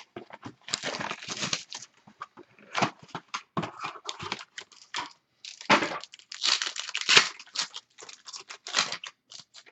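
Plastic shrink wrap tearing and crinkling as a sealed trading-card box is unwrapped and opened, with irregular rustles and sharp crackles throughout.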